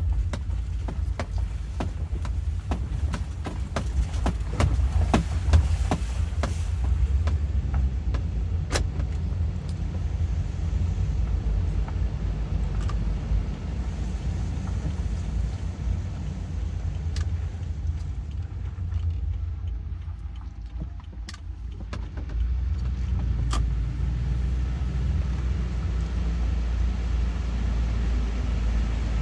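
Car driving, with a steady low rumble of road and engine. Scattered sharp clicks come in the first several seconds. The rumble dips for a few seconds past the middle, then comes back.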